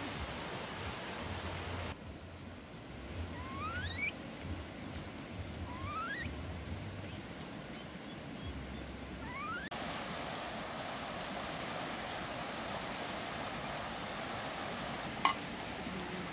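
Fish frying in a pan over a wood fire, a steady sizzling hiss. For several seconds in the middle it gives way to a quieter stretch with a few short rising squeaks from baby monkeys. Near the end comes one sharp metallic clink.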